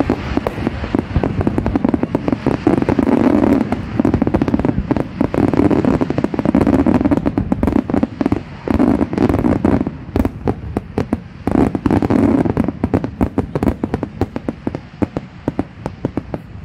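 Fireworks display: a rapid, dense barrage of bangs and crackling, with heavier bursts every couple of seconds, thinning out and growing quieter near the end.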